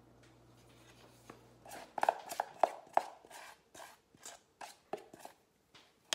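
Utensil scraping and knocking against a stainless steel mixing bowl as icing is worked out of it: a run of sharp, slightly ringing knocks, about three a second, that starts about two seconds in.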